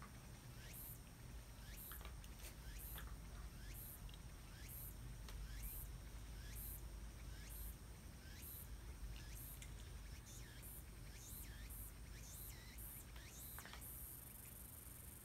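A Shiba Inu licking and mouthing a cat's fur: faint, quick wet licking clicks, roughly one a second, over a low steady room hum.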